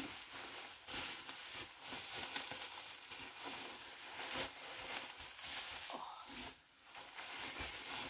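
Plastic bubble wrap rustling and crinkling as it is handled and unwrapped, with small scattered crackles and a brief lull near the end.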